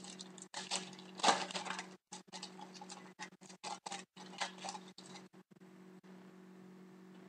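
Foil trading-card pack being crinkled and torn open by hand: a run of crackles and rustles, the loudest tear about a second in. After about five and a half seconds the crinkling stops and only a steady low hum remains.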